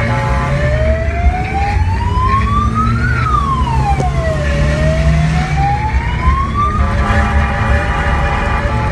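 Fire truck siren wailing, heard from inside the cab over the engine rumble: one slow rise lasting about three seconds, a quicker fall, then a second rise that cuts off near the end.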